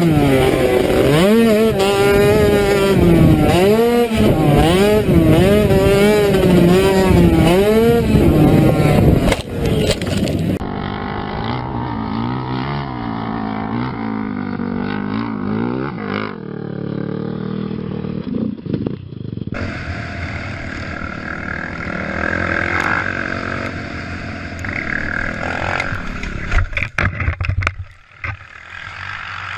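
ATV engines across several short clips. First a quad's engine revs hard, its pitch rising and falling again and again. Then other quads run at steadier speed, with a few sharp knocks near the end.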